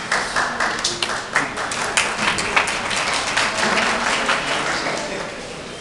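Audience applauding: many hands clapping together, tapering off toward the end.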